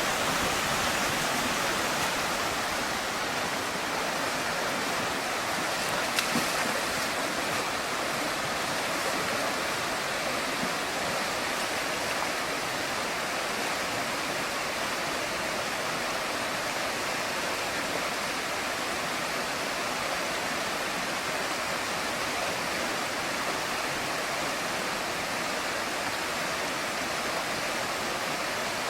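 Fast-flowing jungle river water rushing steadily, with a brief tap about six seconds in.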